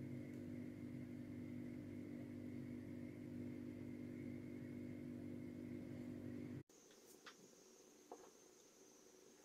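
A steady low mechanical hum with a faint higher tone stops abruptly about two-thirds of the way through. After that there is only faint room tone with a thin high whine and a couple of soft clicks.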